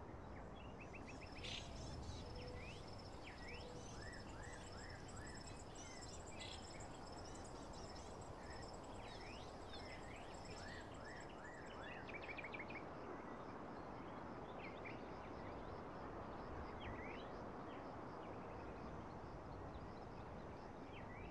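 Faint, steady background noise with small birds chirping now and then throughout, and a faint high pulsing trill in the first half.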